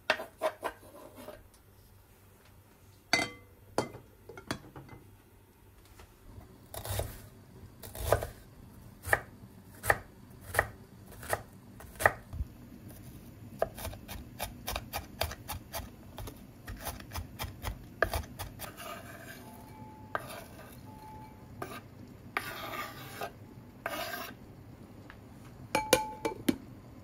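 Kitchen knife chopping on a wooden cutting board: single knocks about a second apart, then quicker tapping as an onion is finely minced. Near the end come a few scrapes and a couple of sharp clicks of dishes.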